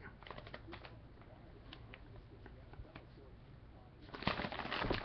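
Faint clicks and rustling from handling a trading card and its plastic holder, growing busier about four seconds in.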